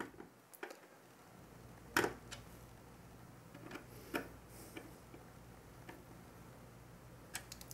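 A few light clicks and taps of small metal hardware being handled, as threaded cooler standoffs are turned down by hand onto backplate screws through a motherboard. The sharpest click comes about two seconds in, with fainter ones scattered through the rest.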